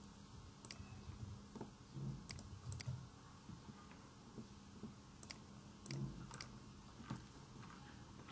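Computer mouse buttons clicking: about a dozen faint, sharp clicks at irregular intervals, over a low steady hum.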